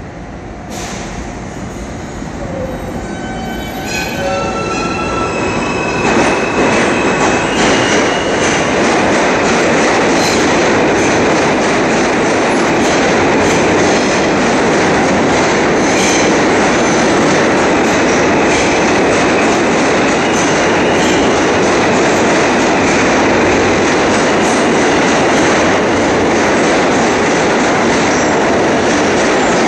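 Two R160 subway trains pulling out of a station on adjacent tracks. Near the start the electric traction motors sound in short stepped tones that climb in pitch, then the running noise of wheels on rails builds over about six seconds into a loud, steady rumble with clatter over rail joints.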